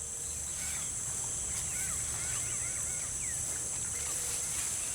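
Several birds chirping with short rising and falling calls, over a steady high-pitched insect drone and a low rumble.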